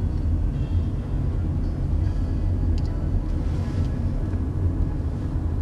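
Steady low rumble of engine and road noise inside a moving car's cabin, with a few faint light ticks.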